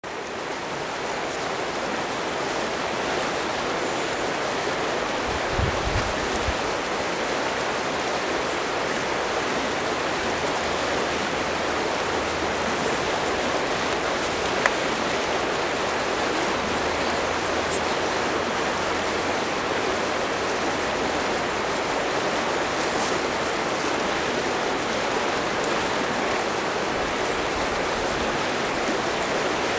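River water running, a steady even rush. A brief low bump comes about six seconds in.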